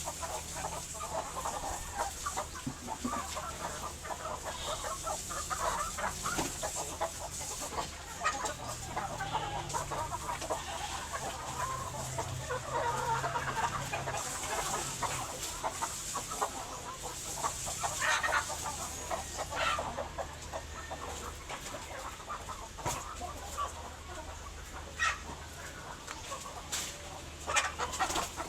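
A flock of chickens clucking continuously, with a steady low hum beneath.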